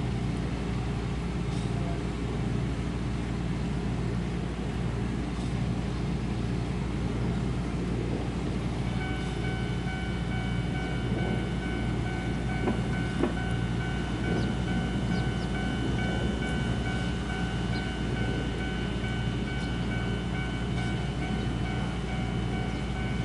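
A Kintetsu 8400 series electric train approaching over a low steady rumble. About nine seconds in, a level-crossing alarm starts and rings on with a steady, pulsing electronic tone.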